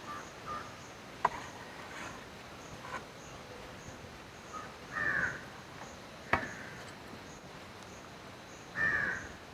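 A crow cawing twice, about five seconds in and again near the end. Between the calls come two sharp knocks of a serving ladle against a metal tray, about a second in and just past six seconds.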